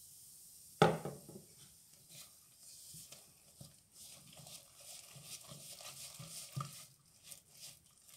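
A glass tumbler set down on the kitchen worktop with one sharp knock about a second in, then a hand working flour and sparkling water into fish batter in a ceramic bowl, faint and irregular, with a light knock against the bowl near the end.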